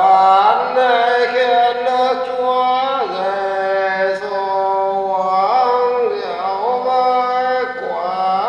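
A man's voice chanting the Vietnamese Catholic Lenten Ngắm, a sung meditation on the Passion, in the northern style: long held notes joined by slides in pitch every second or two.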